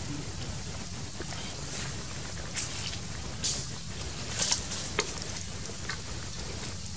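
Beef bone broth at a rolling boil in a metal wok, bubbling steadily with scattered sharp pops and crackles, a few louder ones in the middle.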